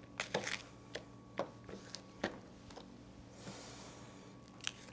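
Chef's knife striking a plastic cutting board as vegetables are cut: a handful of sharp, irregular knocks, with a short soft rustle a little past the middle.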